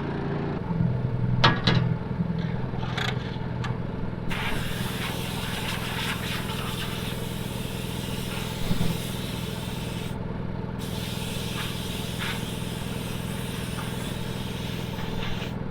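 An engine running steadily, with a few sharp clicks in the first few seconds and a hiss that comes in about four seconds in.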